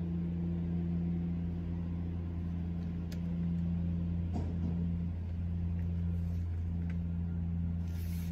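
Steady low machine hum, a deep drone with a higher tone above it that dips briefly a few times, with a few faint clicks.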